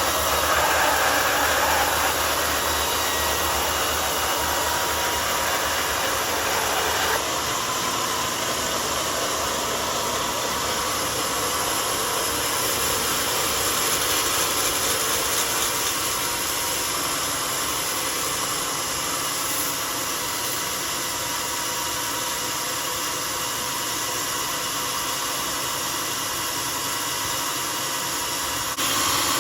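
Homemade sawmill running with a steady, noisy whir as it saws a mahogany log. The sound changes about seven seconds in and again near the end.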